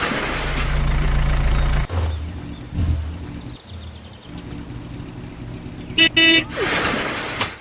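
Cartoon vehicle sound effects: a motor running with a low steady hum that changes after about two seconds, then two short car-horn toots about six seconds in.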